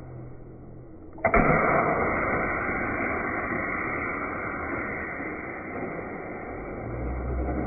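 High-pressure compressed-air launcher releasing a model air-powered car: a sharp pop about a second in as the air is let go, then a steady rushing hiss of escaping air.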